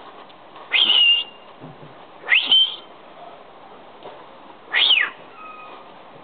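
A small dog whining in three high-pitched cries, each sliding sharply upward; the last rises and falls back down.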